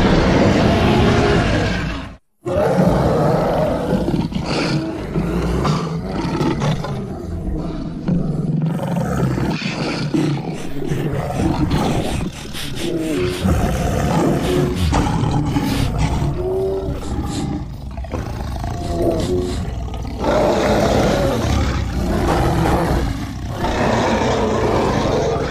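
Creature roar and growl sound effects built from big-animal roars, standing in for a cave bear. One roar cuts off abruptly about two seconds in, and after a brief silence a long run of rumbling growls and roars follows, swelling again near the end.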